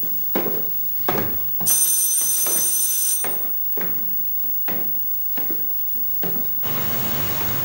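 An electric bell rings loudly for about a second and a half, with sharp knocks before and after it. Near the end a steady low hum sets in.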